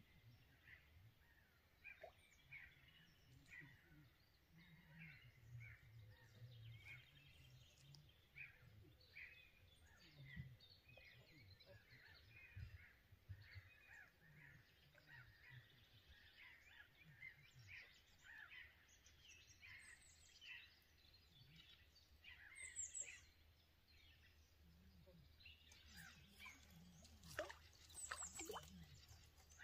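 Faint birdsong: small birds chirping in many short, quick notes over a low background rumble, with a brief livelier burst of calls near the end.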